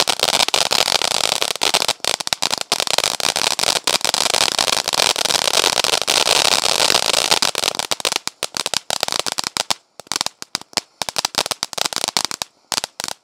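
Black Cat Neighbor Hater ground fountain crackling: a dense, rapid crackle of stars over a hiss that thins to scattered pops over the last few seconds as the fountain burns out.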